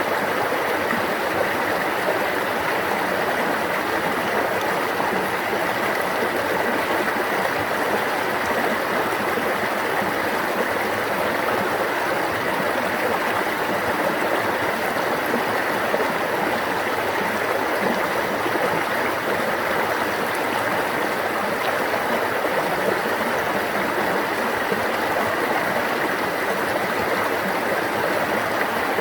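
Stream running steadily: an even, unbroken rush and babble of flowing water.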